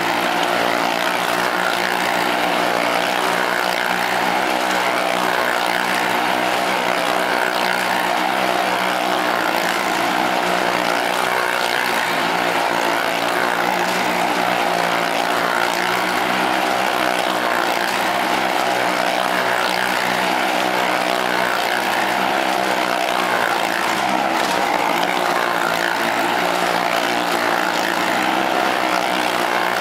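Motorcycles riding around the inside of a wooden wall-of-death drum, their engines running in a loud, continuous, steady drone.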